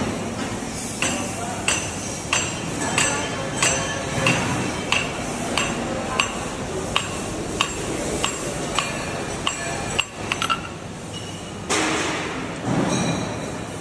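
Evenly spaced metallic clinks, about three every two seconds, each with a short ring, over a steady mechanical rumble. The clinks stop about ten seconds in, and the rumble swells near the end.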